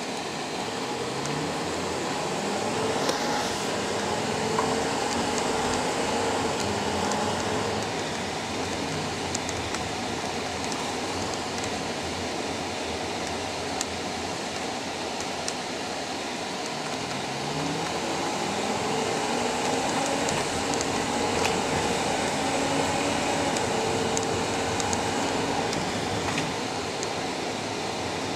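Engine and road noise inside a moving vehicle, a steady rush, with the engine pitch climbing as the vehicle speeds up, once about a second in and again past the halfway mark.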